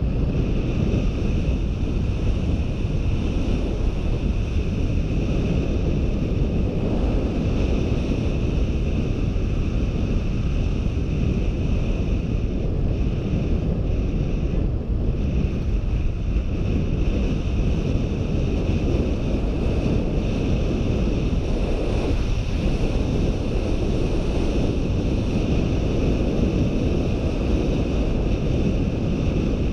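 Steady rumbling wind noise buffeting a GoPro Hero 4's microphone as a bicycle coasts fast downhill.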